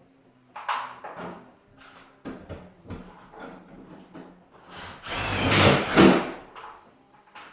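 Scattered knocks and clatter of hand work on garage door panels. About five seconds in comes a power drill running for about a second and a half, its whine rising and falling; this is the loudest sound.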